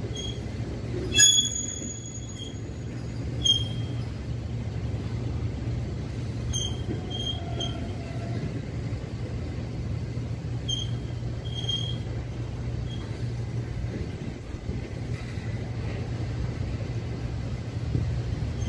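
A steady low rumble from a Herzog rail train's flatcars loaded with long welded rail rolling slowly past. Short, high-pitched metal squeals break in several times; the loudest comes about a second in.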